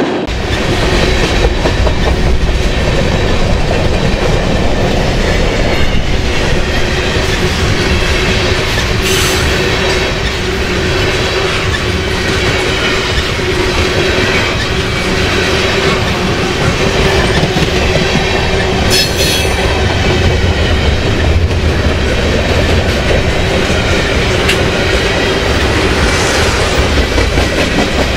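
Heavy freight train's tank cars and boxcars rolling past close by: a steady rumble with the clickety-clack of wheels over the rail, and an even hum held throughout. Brief high wheel squeals come about a third of the way in and again about two thirds in.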